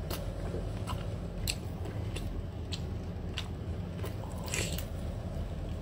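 Close-up mouth sounds of biting and chewing cooked squid soaked in chili sauce, with sharp wet clicks and smacks about every half second to second, over a steady low hum.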